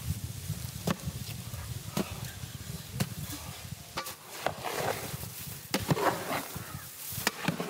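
A wooden stick stirring and scraping through crushed green ice in a large metal pot, with grainy scratching strokes from about four seconds in. Before that there is a low hum with a sharp click about once a second.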